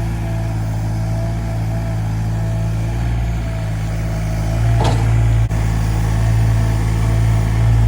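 Sany SY35U mini excavator's diesel engine running steadily, with a brief sharp sound just before five seconds in.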